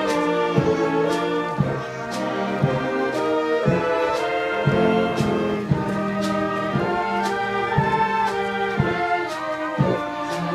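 Concert band of woodwinds and brass playing a Christmas carol, with a steady beat about twice a second.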